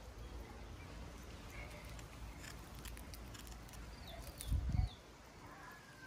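A few faint, high chirps from a nestling bird begging in its nest, over a low rumble. There are some light clicks, then a brief low thump just past the middle, which is the loudest sound.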